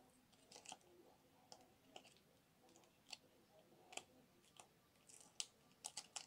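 Faint crackles and sharp clicks of a rigid plastic card top loader being handled while tape is peeled off it, scattered irregularly, with the loudest click about five seconds in.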